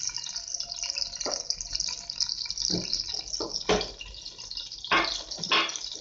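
Tomato paste sizzling and crackling in hot oil in a pan, with a few louder pops.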